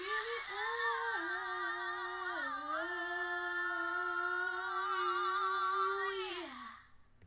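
A female voice singing the end of a pop song: a short moving phrase, then one long held note with vibrato that slides down in pitch and fades out about six and a half seconds in.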